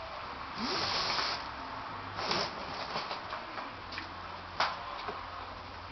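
Rustling of blue spruce sprigs being handled and pressed into a wreath, in short hissy bursts with a sharp click about four and a half seconds in, over a low steady hum.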